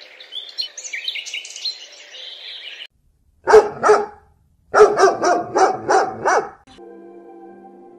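Birds chirping for the first few seconds, then a dog barking: two loud barks, a short pause, and a quick run of about six barks.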